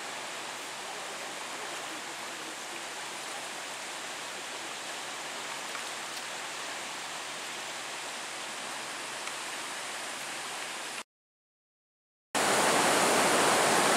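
A river in flood after heavy rain: fast, swollen brown water rushing in a steady, even hiss. The sound cuts out completely just after 11 s, and a louder steady rush comes back about a second later.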